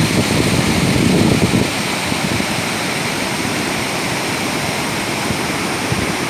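Waterfall rushing steadily, with wind buffeting the microphone in the first two seconds.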